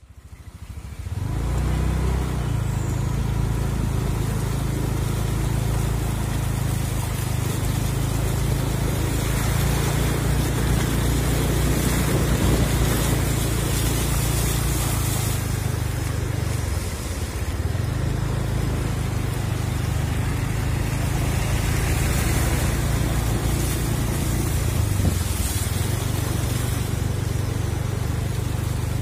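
Bus engine idling steadily, a low hum with a hiss over it.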